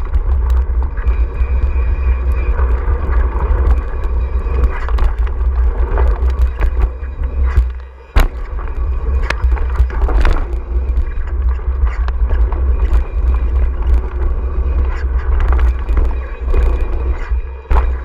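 Downhill mountain bike running fast over a dirt trail: heavy wind rumble on the helmet or bike camera's microphone, tyre roar and frequent knocks and rattles from the bike. About eight seconds in the noise drops briefly, then a single sharp knock.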